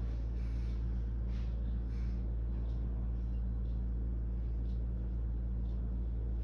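Steady low hum with faint background hiss and no distinct events: room tone.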